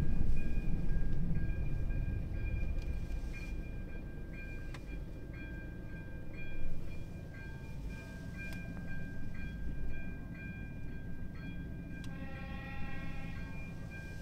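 Railway level-crossing warning signal sounding: a steady high electronic ringing with a pulsing second tone, over a low rumble that is loudest at the start and dies away over the first few seconds. About twelve seconds in, a horn sounds for a second and a half.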